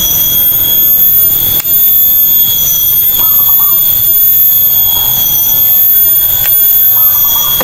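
A loud, steady high-pitched whine that does not let up, with a short warbling call near the middle pitch repeating about every four seconds and a couple of sharp clicks.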